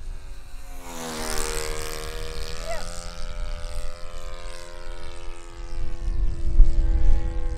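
Radio-controlled aerobatic model airplane flying past, its motor and propeller giving a steady droning whine. The pitch falls as the plane passes about a second in, then holds steady.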